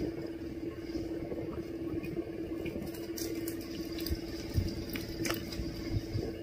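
Close-up eating sounds: wet chewing and mouth noises, with a few short sharp clicks such as a plastic fork against a plastic cup, over a steady low hum.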